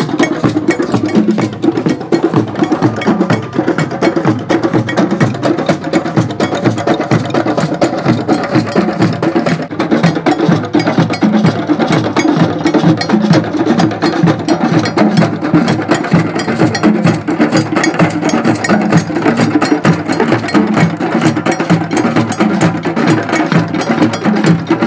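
Many djembes and other hand drums played together by a group of drummers: loud, dense hand strokes in a steady rhythm.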